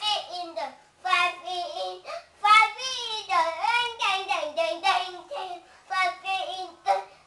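A boy of nearly four singing in a high child's voice, in several short phrases with brief breaks between them.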